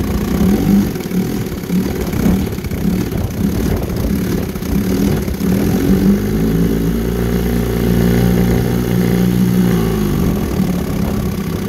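1963 Evinrude Sportwin 10 hp two-cylinder two-stroke outboard running in a water test barrel. Its speed wavers at first, holds steady for a few seconds, then drops off near the end.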